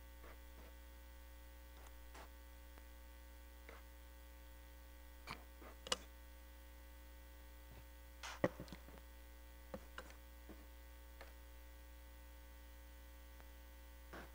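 Low, steady electrical mains hum, with a few faint scattered clicks and knocks.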